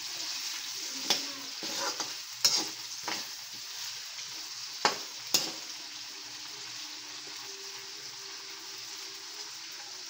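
Diced potatoes and pork frying in hot oil in a pan, sizzling steadily. A spatula scrapes and knocks against the pan about five times in the first half.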